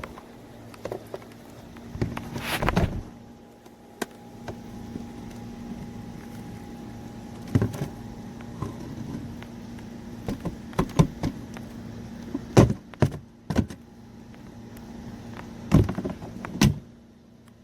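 A run of separate plastic clicks, knocks and thunks as the Shark upright vacuum's dust cup is handled and emptied, heard over a steady low hum.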